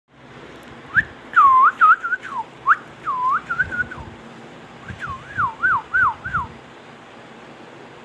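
Indian ringneck parakeet whistling: a run of swooping, dipping whistled notes, a short pause, then a second quicker run of up-and-down whistles.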